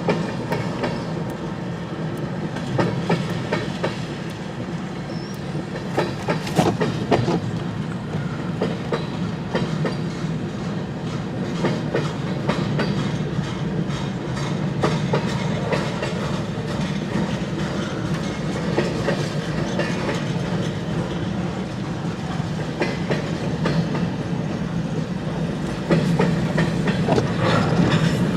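CN freight train rolling past, its wheels clicking over rail joints in a steady clickety-clack over the rumble; it grows louder near the end.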